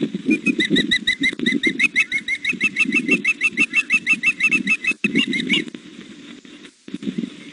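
Osprey calling: a fast, even run of short high chirps, about seven or eight a second, that stops a couple of seconds before the end, typical of a young osprey food calling. Under it, low pulsing buffeting from the bird's flapping wings.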